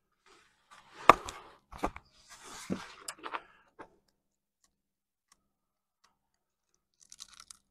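Handling noise: a few sharp clicks and knocks and a brief rustle in the first four seconds as hands work over the duct-taped wooden fixture holding the 3D-printed barrel.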